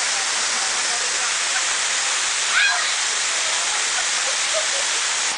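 Waterfall water rushing in a steady, loud hiss, with a brief distant shout about two and a half seconds in and faint voices near the end.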